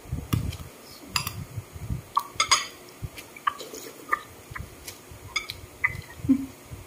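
Metal spoon clinking against a ceramic soup bowl and plates while someone eats, about a dozen irregular sharp clinks with soft low knocks between them.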